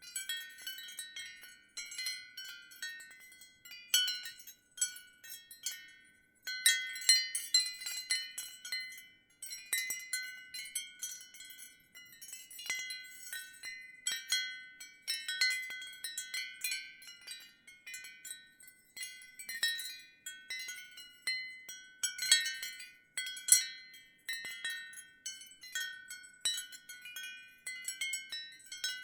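Ceramic wind chimes chiming: high, ringing notes struck in irregular clusters, with a few short lulls between gusts.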